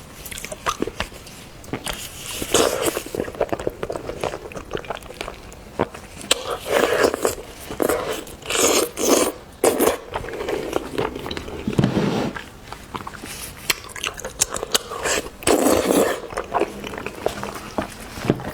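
Close-up eating sounds: irregular biting, chewing and crunching of seafood, with many small wet clicks and a few louder bursts.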